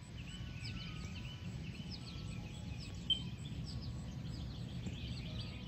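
Several songbirds chirping and singing at dawn, many short quick notes overlapping, with one brief louder note about three seconds in. A low steady rumble lies underneath.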